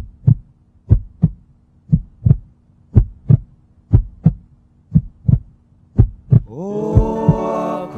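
Heartbeat-like double thump, two low beats in quick succession about once a second, in a music track's intro. About two-thirds of the way in, a sustained chord slides up in pitch and swells in under the beat.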